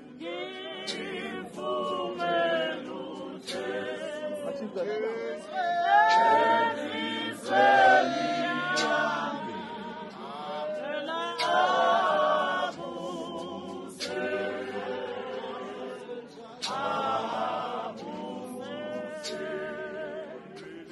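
Church congregation singing a Zulu hymn together a cappella, men's and women's voices in unison and harmony, with occasional sharp knocks over the singing.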